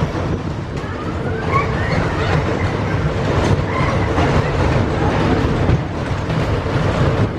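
Waltzer fairground ride in motion: a steady, loud low rumble and clatter of the spinning cars running round the ride's track.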